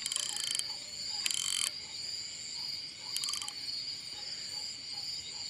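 A night chorus of crickets and other insects chirring steadily in high tones. Three short bursts of a louder, rapid rattling call come over it, about a second apart near the start and again about three seconds in.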